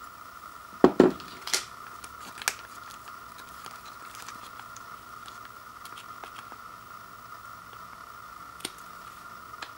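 A ceramic bowl set down on a wooden floor, two knocks about a second in, then sharp clicks and the small crinkling and ticking of a plastic sauce packet being picked at and torn open by hand. A faint steady high whine sits underneath.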